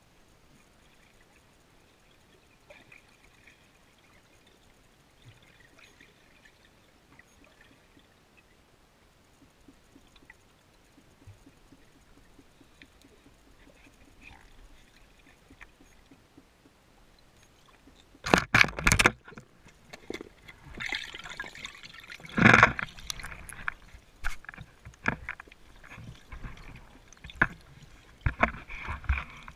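Underwater recording through a camera's waterproof housing: a faint hiss with scattered small ticks at first, then, about two-thirds of the way in, loud irregular gurgling and sloshing of water with knocks against the housing as the diver moves.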